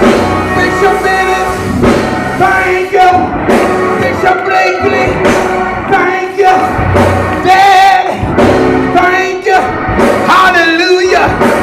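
Loud church music with singing, voices and instruments together, with a wavering held sung note about ten seconds in.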